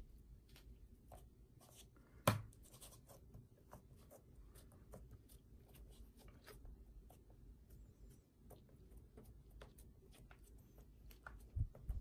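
Faint sticky clicks and small pops of slime being pressed and spread flat by hand on a table. A single thump about two seconds in is the loudest sound, and two knocks come near the end.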